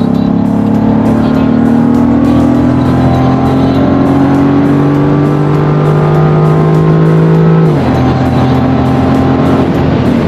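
Car engine pulling under acceleration, its pitch climbing steadily for several seconds. About eight seconds in, the revs drop suddenly at an upshift and the engine carries on at a lower pitch.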